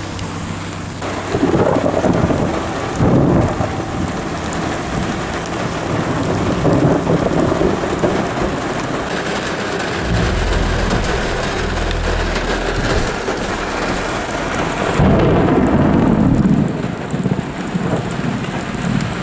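Heavy rain on a car during a thunderstorm, with thunder rumbling loudly twice, about a second and a half in and again about fifteen seconds in.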